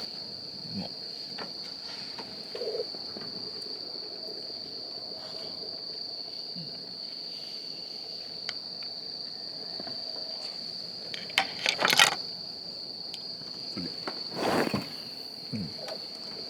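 Insects, likely crickets, calling in a steady, unbroken high trill. A quick clatter of sharp clicks comes about three-quarters of the way in and is the loudest sound. A brief muffled knock follows a couple of seconds later.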